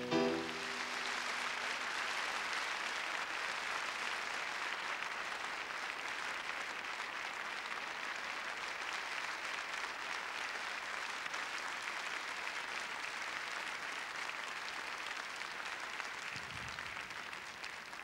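Large theatre audience applauding steadily, a dense even clapping that follows the last notes of the song fading out in the first second.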